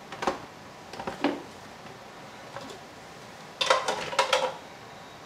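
Kitchenware being handled: a few separate light knocks, then a quick cluster of clinks and knocks about three and a half seconds in, like a utensil striking a jug and dishes.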